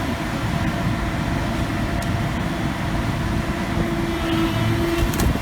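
Steady mechanical running noise, like a vehicle or machine, with a steady low hum held through it.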